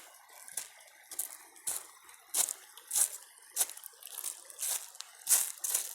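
Footsteps crunching on rough dry ground, a step roughly every half second to second at a walking pace.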